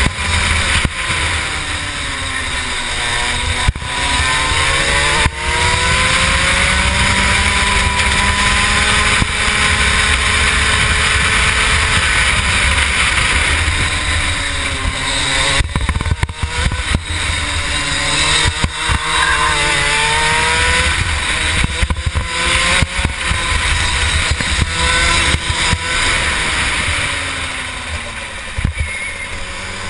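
Rotax 125 two-stroke kart engine running hard while lapping. Its note drops several times as the kart brakes into corners and climbs again on the throttle out of them.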